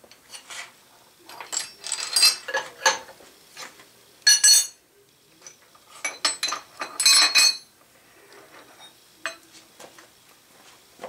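Steel tools and a cast-iron casting clinking and clanking as they are handled on a milling machine table: a box-end wrench loosening a strap clamp nut and being set down, then the workpiece lifted off the clamps and parallels. The clatter comes in a few bursts, the loudest about four and a half and seven seconds in, with lighter clicks near the end.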